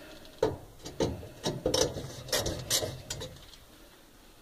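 Light metallic clicks and knocks of parts being handled in a gas oven's burner compartment: about seven irregular clicks over three seconds, dying away near the end.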